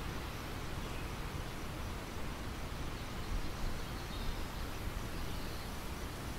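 Outdoor field ambience: a steady rustle of wind through ripe wheat, with a low, uneven wind rumble on the microphone.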